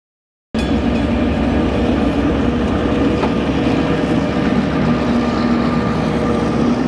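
Victorian Railways T class diesel-electric locomotive T411 passing close by with its train: a loud, steady engine drone over a low rumble, starting abruptly about half a second in.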